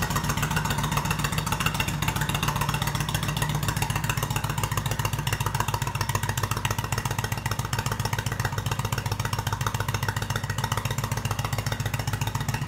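1997 Kawasaki VN800 Vulcan's 800 cc V-twin idling steadily through debaffled Remus exhaust pipes, a deep even pulsing beat.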